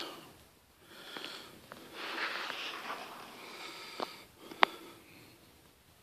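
A person breathing softly through the nose close to the microphone, with a few light clicks; one sharp click about four and a half seconds in is the loudest sound.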